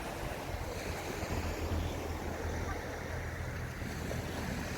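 Sea waves breaking and washing onto the beach in a steady surf, with a low wind rumble on the microphone that is strongest in the middle.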